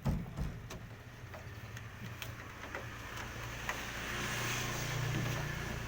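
An engine running steadily with a low hum, growing louder from about halfway through to a peak near the end.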